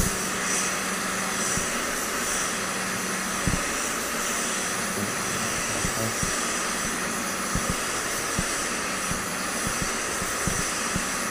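Gravity-feed spray gun hissing steadily as compressed air atomises paint onto a car panel, over a steady low hum from the spray booth, with a few faint knocks.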